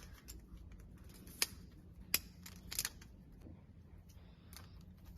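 Several sharp plastic clicks spread over a few seconds, a double one among them, as a fiber optic adapter is pushed into a patch panel port and snaps into place.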